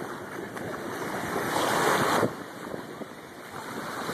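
Wind buffeting the phone microphone over small waves washing in the shallows, with a louder rush of noise about two seconds in that cuts off abruptly.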